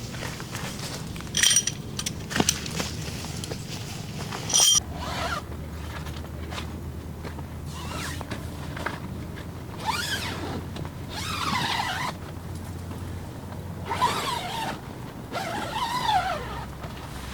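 Two sharp metallic clinks with a brief ring in the first few seconds, then irregular scraping and rustling handling noises.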